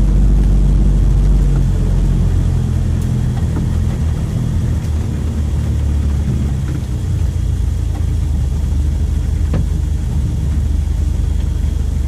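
Mitsubishi L300 pickup's engine running under a light load, heard from inside the cab as it drives slowly over a rough, wet dirt track. The low engine note shifts and eases slightly about two seconds in.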